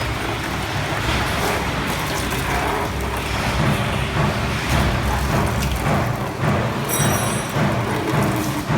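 Steady industrial machinery noise with a low rumble, with a brief high whine about seven seconds in.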